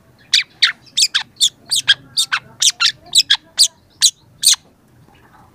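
Young long-tailed shrike calling: a rapid run of about sixteen sharp, steeply falling notes, roughly four a second, that stops about four and a half seconds in.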